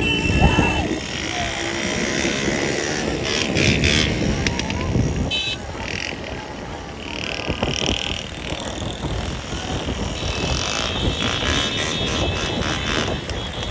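Many motorcycles running together in a dense pack, their engines and road noise blending into a steady rough din.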